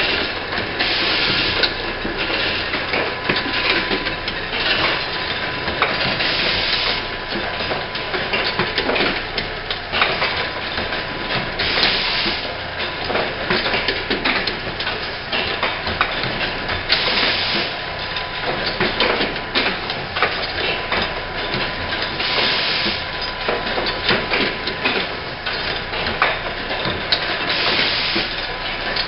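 Pneumatic insulin syringe assembly machine running: continuous clicking and clacking of its mechanisms, with a loud burst of compressed-air hiss about every five seconds.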